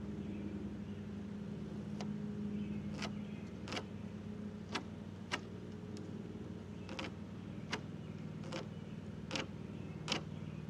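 About a dozen light, sharp ticks, one every second or less, from a hand marking tool and square worked against the face of a timber rafter. A steady low mechanical hum runs underneath.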